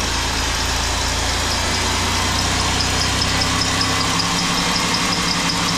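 Ford Taurus engine idling with a quick, regular light knock that the mechanics cannot yet place.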